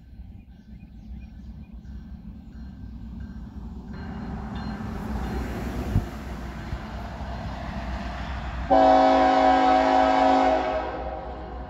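The air horn of a GE Dash-9 diesel locomotive leading a freight train sounds one long blast of about two seconds, about three-quarters of the way through, as a warning for the grade crossing ahead. Before the blast, the approaching train's rumble grows steadily louder.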